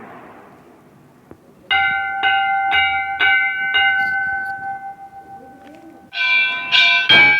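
A Hindu temple bell is struck five times, about twice a second, and left ringing. About six seconds in, louder strikes on another bell join, with a sharp clang near the end.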